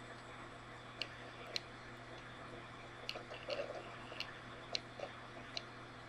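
Steady low hum and hiss with several small, sharp, irregular clicks, bunched a little around the middle.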